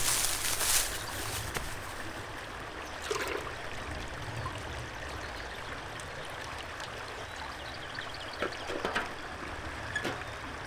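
Shallow river running over a fast current, a steady rush of flowing water, with a few light knocks near the start, about three seconds in and again near the end.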